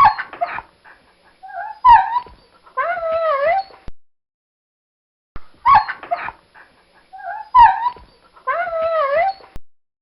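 Pug whining and crying: a few short yelping cries, then a long high whine that wavers up and down in pitch. The same run of cries comes twice, with a short silence between.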